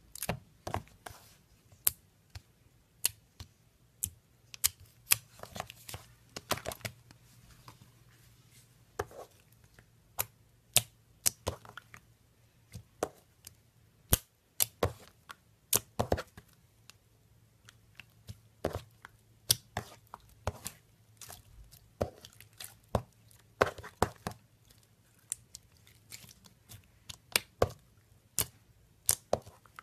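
Fingers poking and pressing glossy translucent slime, making sharp irregular clicks and pops, about one or two a second.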